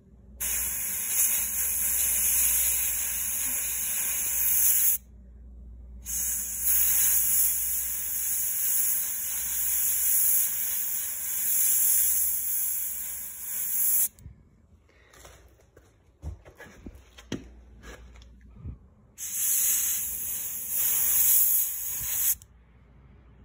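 Airbrush spraying paint: a loud air hiss in three long bursts that start and stop sharply as the trigger is pressed and released, with a few light clicks in the longer pause.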